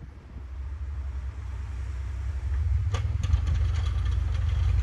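Straight-piped 6.5-litre Detroit turbo-diesel V8 of a Chevy K2500 plow truck running, growing steadily louder as the truck drives closer. A brief clatter of clicks comes about three seconds in.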